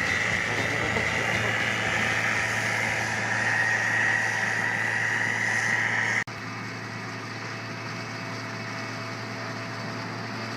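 Harvest machinery engine running steadily, likely a combine or tractor working in the wheat field, with a constant low hum under a wide mechanical rush. About six seconds in the sound cuts abruptly to a quieter stretch of the same kind of steady machine running.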